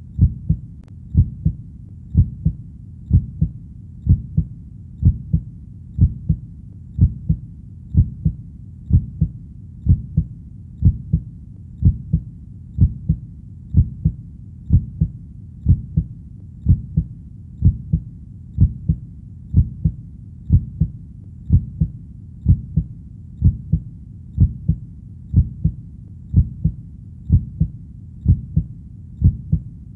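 Heartbeat, a steady low double thud (lub-dub) about once a second, over a faint low background rumble between beats.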